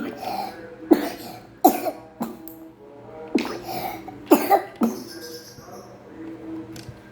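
A child coughing: about six short, sharp coughs in two bouts, the first just at the start and the second a few seconds later.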